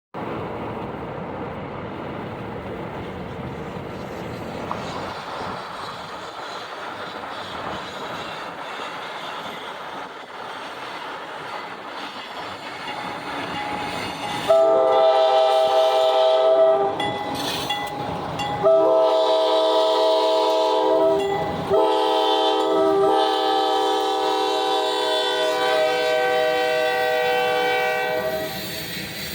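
Grain train led by two GE B23-7R diesel locomotives approaching, its rumble slowly growing, then the lead locomotive's horn sounding a chord of several tones in the grade-crossing signal: two long blasts, a short one and a final long one.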